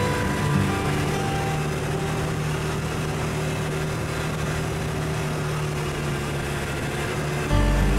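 ATV engine running steadily at trail speed, heard from aboard as a steady hum with a held low tone and road noise. Background music comes in loudly near the end.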